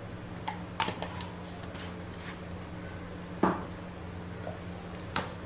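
A few scattered light clicks and knocks of kitchen utensils being handled while ingredients go into a mixing bowl, the strongest about three and a half seconds in, over a steady low hum.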